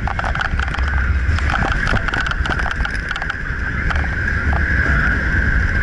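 Vekoma suspended looping roller coaster running at speed, heard from the front seat: wind buffeting the microphone with a heavy low rumble, and the train's wheels on the steel track giving a steady high whine and frequent rattling clicks.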